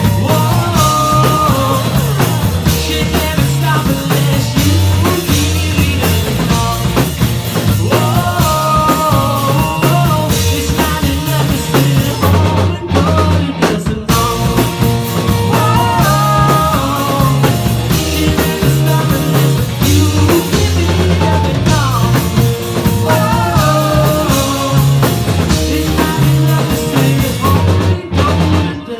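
Live rock band playing loudly: a singer over distorted electric guitars, bass guitar and a drum kit. The whole band cuts out for a split second twice, about 13 and 14 seconds in, then carries on.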